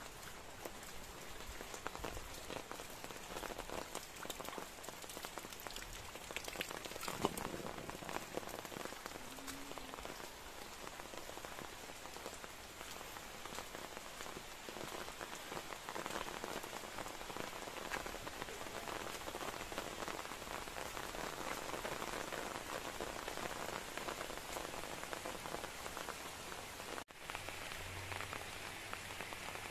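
Steady rain falling: an even hiss with many small drop clicks. The sound cuts out for an instant near the end and then carries on.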